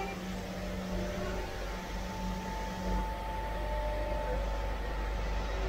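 Crystal grinding machine running steadily, its wheel fed with carborundum slurry: a constant low motor hum under an even mechanical noise, with a thin steady whine joining about a second in.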